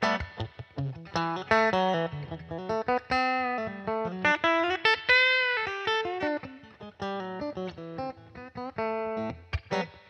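Unaccompanied Fender Telecaster electric guitar playing a blues solo: runs of short picked notes, with a longer note bent up and back down about five seconds in.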